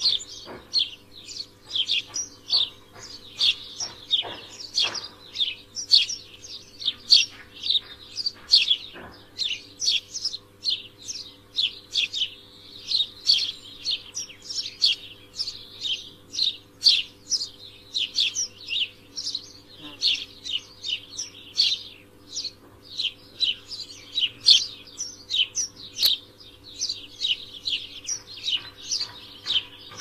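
Several Eurasian tree sparrows chirping: a constant stream of short, high chirps, several a second, overlapping from more than one bird.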